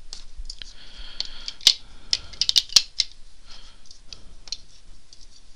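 Bedlam cube puzzle pieces clicking and knocking against each other as they are fitted together by hand: a scatter of sharp clicks, several a second.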